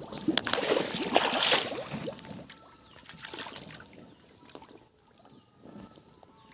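Water splashing and sloshing, loud and busy for about two seconds, then a few smaller splashes.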